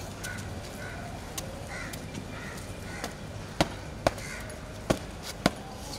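Birds calling in short repeated calls through the first half, then a few sharp knocks about half a second apart from a little past the middle.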